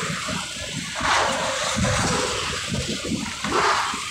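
Wind rushing and buffeting over the microphone of a moving motorcycle, swelling a little after a second in and again near the end, over a low rumble of engine and road noise.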